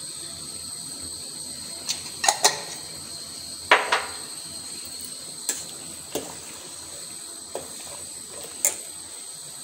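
Metal spoon clinking and scraping against a steel cooking pot while a runny chutney is stirred: about eight separate clinks, the loudest about four seconds in, over a steady faint hiss.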